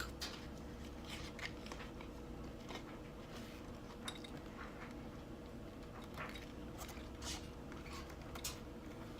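Faint scattered clicks and small handling noises, about eight in all, over a steady low hum with a thin steady tone.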